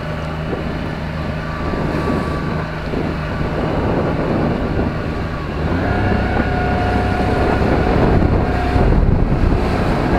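A MacGregor 26-X's outboard motor running steadily with the boat under way, with wind buffeting the microphone. About six seconds in, the motor note gets a little higher and louder.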